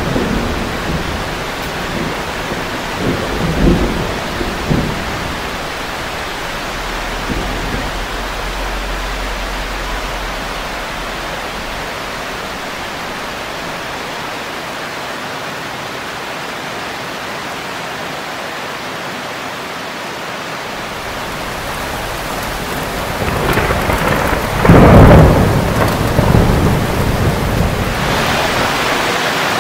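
Steady rain with thunder: a low rumble fading out over the first few seconds, then a louder roll of thunder building about 23 seconds in and peaking a couple of seconds later, the loudest moment.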